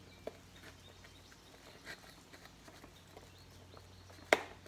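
Handling of a cardboard box: a few faint clicks and rustles, then one sharp knock about four seconds in.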